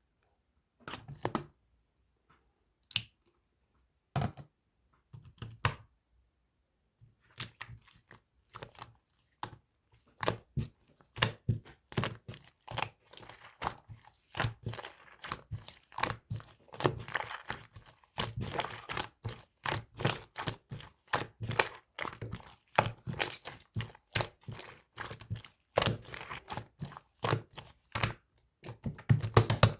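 White slime being squished and pressed by hand, making sticky pops and crackles. A few separate pops in the first seven seconds, then a quick, dense run of them.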